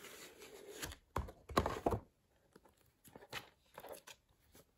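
DVD cases being slid out of a cardboard box set and laid on a wooden table: a few soft knocks and scrapes, loudest between one and two seconds in, then faint handling noises.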